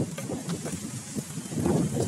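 Wind buffeting the microphone: an uneven rumble that swells near the end, with a few faint ticks.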